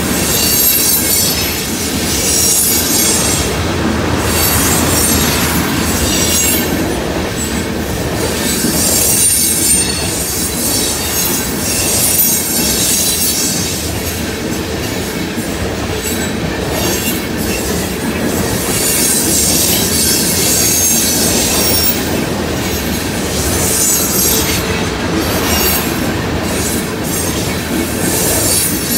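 Railroad tank cars of a unit tanker train rolling past close by, their steel wheels rumbling steadily on the rails. A high-pitched wheel squeal comes and goes several times.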